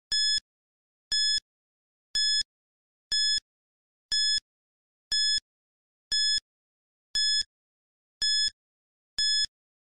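Quiz countdown timer sound effect: ten identical short high-pitched beeps, one a second.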